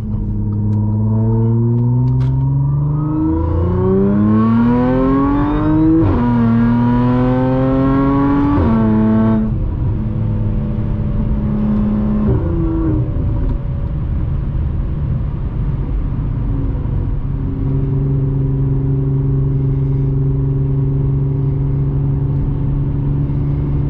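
Audi S4's supercharged 3.0-litre V6 with AWE exhaust and test pipes, heard from inside the cabin, accelerating through the gears: the engine note climbs, drops at an upshift about six seconds in, climbs again and drops at two more shifts. It then holds a steady note at cruise for the last several seconds.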